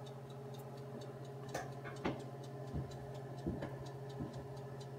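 Faint background of a steady low hum with light, regular ticking about four times a second, and a few soft pops scattered through it.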